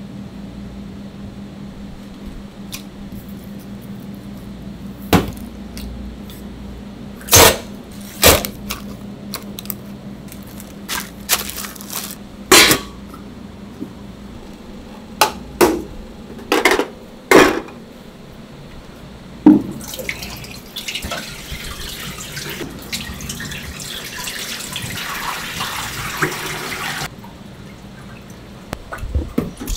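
Stainless steel trays and pans clanking on a steel counter, a dozen sharp metallic knocks. In the last third, cooking oil pours from a large metal tin into a deep fryer, a steady splashing stream for several seconds.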